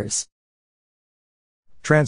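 Speech only: a voice finishes the word 'otters', then total silence for about a second and a half before it begins saying 'translate'.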